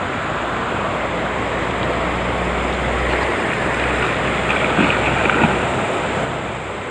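Steady rushing of a flowing river current, heard as an even hiss with a low rumble through the first half. A couple of faint knocks come about five seconds in.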